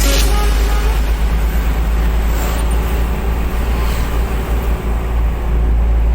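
Heavy diesel engine running steadily with a low rumble, from the excavator or dump truck at work loading sand.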